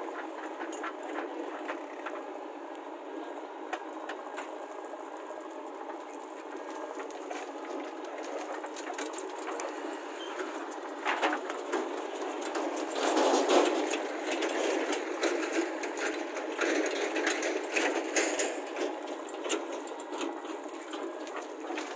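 Diesel engine of a JCB 3DX backhoe loader running steadily under digging work, with a tractor engine idling alongside. The sound grows louder for a few seconds past the middle while the backhoe arm works the soil.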